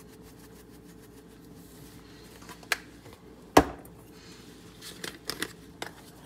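Kitchen handling sounds as seasonings are measured into a steel mixing bowl: a few sharp clicks and knocks from spice containers and measuring spoons. The loudest is a single sharp knock about halfway through, and a quick run of lighter clicks comes near the end.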